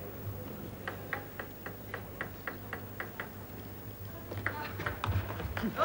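A table tennis ball bounced about ten times in a quick, even rhythm as the player readies his serve, followed by a short rally of sharper, less regular ball hits on bat and table from about four seconds in.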